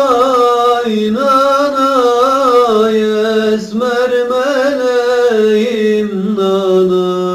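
A man singing a long, drawn-out wordless melismatic line in a Turkish folk song. The pitch wavers in ornaments and slowly falls, with a short break for breath about three and a half seconds in.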